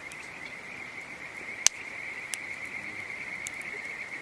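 Campfire crackling, with one loud sharp pop a little over a second and a half in and a couple of fainter snaps after it, over a steady high trilling chorus of calling frogs or insects.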